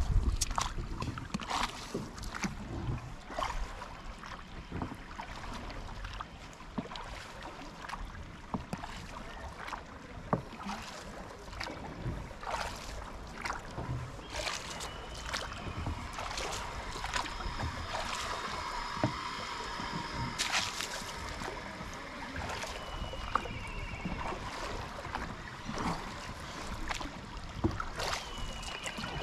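Wooden paddle of a shikara dipping and pulling through calm lake water, with irregular splashes and water lapping against the wooden hull.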